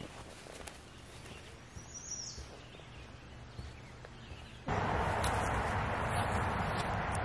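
Outdoor garden ambience: a few faint bird chirps and soft steps on loose soil, then a little past halfway a louder, steady rushing background noise abruptly takes over.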